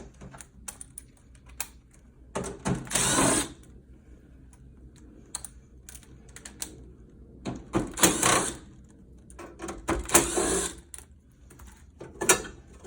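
Power driver backing screws out of a PTAC unit's sheet-metal cover plates: three short runs of about a second each, with small clicks and knocks of handling between them.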